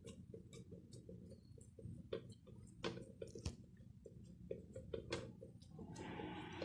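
Fingers patting and pressing a soft stuffed dough ball flat on a steel plate: faint, irregular soft taps. A faint hiss comes in near the end.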